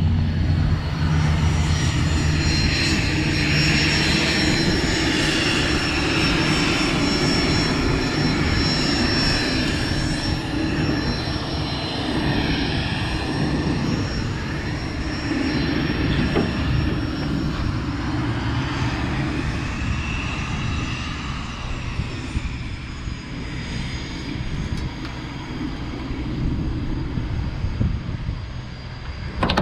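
Cessna 172 light aircraft's piston engine and propeller running steadily, with a few higher tones drifting slowly up and down in pitch.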